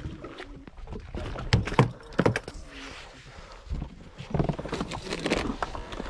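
A few sharp thumps and knocks on a boat deck, the loudest about one and a half to two and a half seconds in, followed by more scattered knocking and handling noise.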